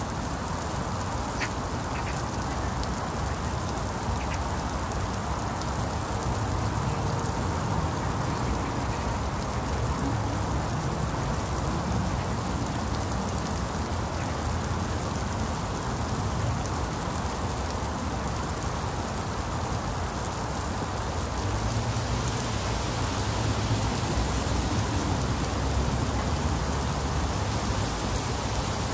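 Very heavy rain falling steadily on a village lane, tile roofs and leaves: an even hiss that grows a little louder late on.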